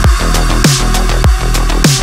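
Electronic drum-and-bass style background music with a steady beat: deep kick drums that drop in pitch about every 0.6 seconds, with a hissing snare-like hit on every other beat.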